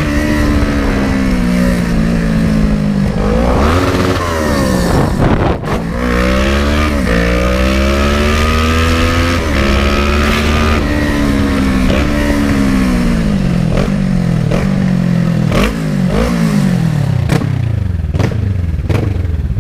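Kawasaki ER-6n's 650cc parallel-twin engine, ridden hard: the engine note climbs and falls again and again as the bike accelerates, shifts and slows. A few sharp clicks come near the end.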